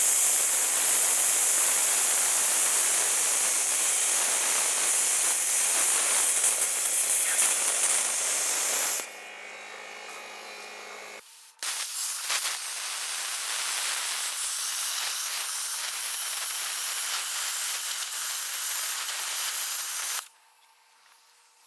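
Plasma cutter cutting a steel car wheel rim, going back over the cut to burn through the metal: a loud, steady hiss of the arc for about nine seconds, a short pause, then a second, somewhat quieter pass that cuts off shortly before the end.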